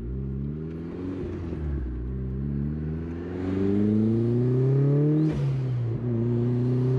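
Turbocharged 1999 Mazda Miata's 1.8-litre four-cylinder engine accelerating through the gears, its pitch climbing and dropping at each shift. The longest pull ends about five seconds in with a short falling hiss from the turbo's blow-off valve as the throttle closes, then the engine settles to a steady cruise.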